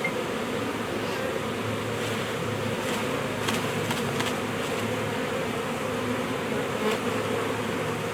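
A huge swarm of honeybees buzzing close by: a dense, steady hum of many bees at once. A few faint clicks about halfway through.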